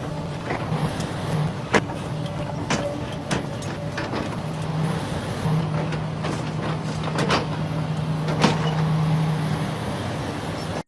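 An engine running steadily at a constant pitch, with a few sharp knocks through it.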